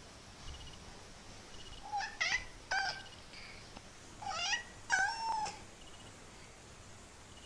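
Kitten meowing: four short, high-pitched calls in two pairs, the first pair about two seconds in and the second, longer pair about four and a half seconds in.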